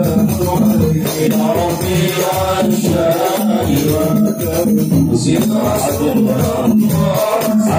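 Men singing Arabic sholawat together in unison through microphones and a PA, with a frame drum struck in a steady, quick rhythm under the voices.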